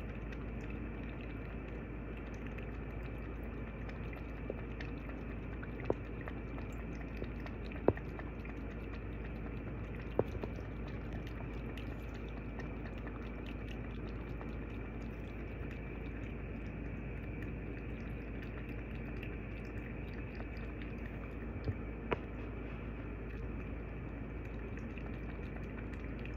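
British Shorthair kitten licking and mouthing a glass bowl: a handful of sharp clicks of tongue and teeth on the glass, several seconds apart, over a steady low hiss.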